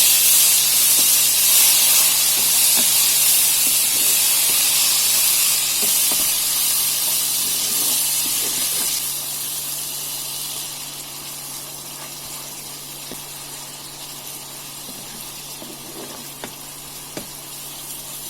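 Ginger-garlic paste and ground spices sizzling in hot oil with browned onions. The sizzle is loud at first and dies down over the second half, with a few light taps near the end.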